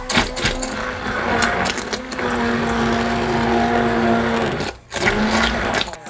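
Immersion blender puréeing chunky tomato sauce in a stainless steel saucepan, its motor running with a steady whine. It stops for a moment near the end and starts again.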